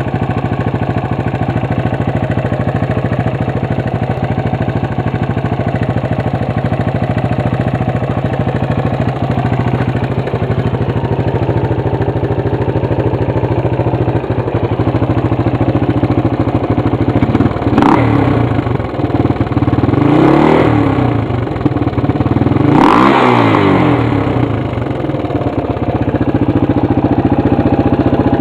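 1989 Suzuki LT250S Quadsport's single-cylinder four-stroke engine, bored .040 inch over and breathing through a 2007 Yamaha YZ450F muffler, idling steadily. In the second half the throttle is blipped three times, each rev rising and dropping back to idle.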